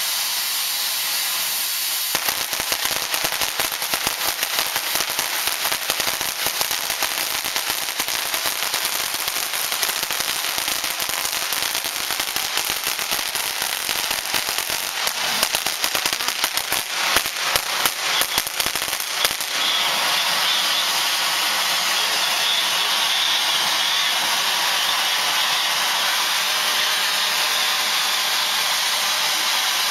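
Weco 'Ocean of Lights' firework fountain burning. A steady hissing spray gives way about two seconds in to dense crackling, heaviest near the middle. For the last ten seconds it is a smooth, even hiss again.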